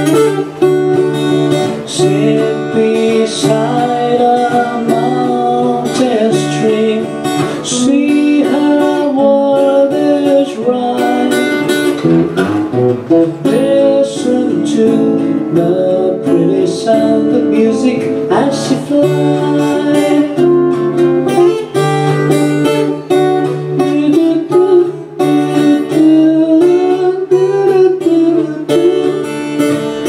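Two acoustic guitars playing a song together live, picked and strummed chords with a moving melody line.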